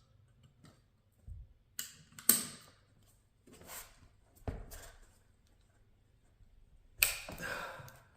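Ratchet straps being worked to pull reclaimed pine floorboards tight: a few irregular sharp clacks and swishes, the loudest about two seconds in, then a longer scraping rasp near the end.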